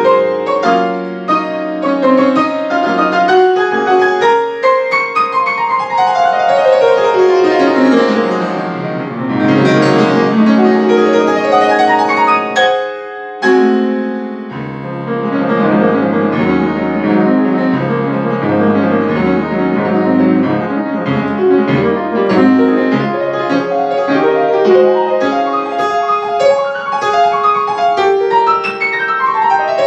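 Solo grand piano playing fast, dense classical passagework. A long descending run falls from the treble into the low register about five to nine seconds in, and the playing breaks off briefly around thirteen seconds before resuming with deep bass notes underneath.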